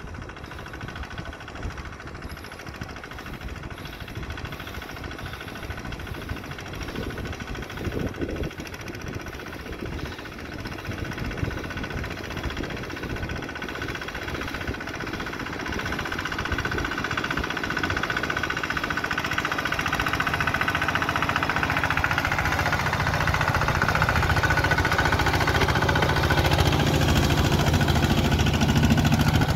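Kubota two-wheel walking tractor's single-cylinder diesel engine running with a steady knocking chug, growing steadily louder through the second half.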